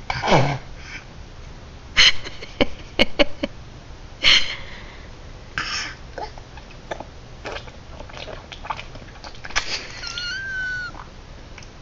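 A young child's wordless vocal noises: a falling cry at the start, short breathy bursts and a few sharp clicks a couple of seconds in, and a high held squeal near the end.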